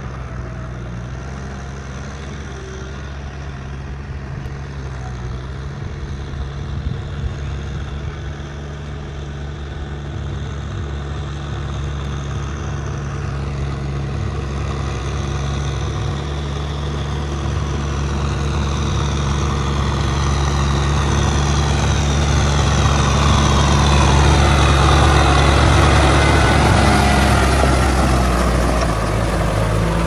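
Kubota M6040SU tractor's diesel engine running steadily under load while working a muddy paddy. It grows steadily louder as the tractor comes closer, loudest a few seconds before the end.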